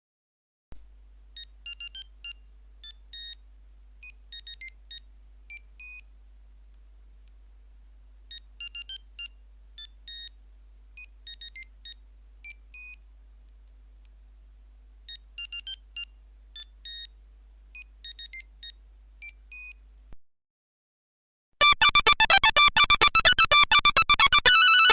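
Nokia 1100 monophonic ringtone: a short beeping tune in high electronic tones, played three times with a pause between each. About 21 seconds in, after a brief gap, the next ringtone starts: a fast, dense run of beeps, louder than the first tune.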